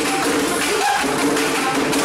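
Live flamenco music: steady held tones under many quick, sharp percussive taps.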